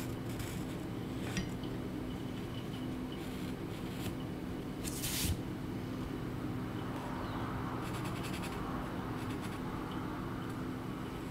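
Pencil scratching on paper in short strokes, with one sharper stroke about five seconds in and a run of light scratching near the end, over a steady low hum.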